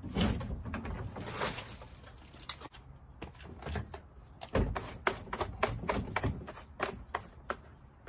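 Hard plastic being handled: a rustle and thump near the start as a wheeled trash cart's lid is swung open, then a run of irregular sharp clicks and knocks as a Roomba robot vacuum's plastic body is turned over and gripped.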